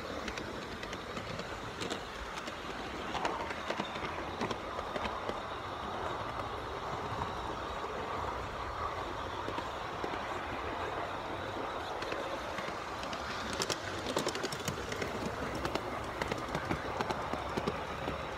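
Garden-scale model train rolling along its outdoor track, heard from on board: a steady running noise with frequent sharp clicks from the wheels on the rails, thickest about two-thirds of the way through.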